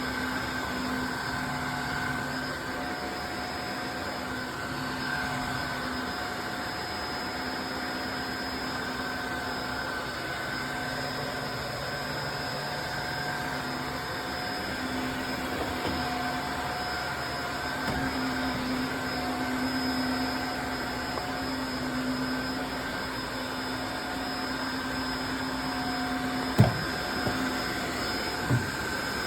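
Tineco Floor ONE S5 wet-dry vacuum running steadily, a motor hum with a constant whine. Two short knocks come near the end.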